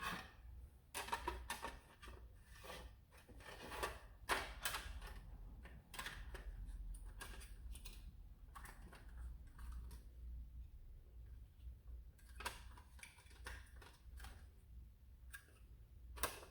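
Small kit parts being handled and fitted by hand, with irregular light clicks and knocks, busiest in the first few seconds and again in a short cluster near the end.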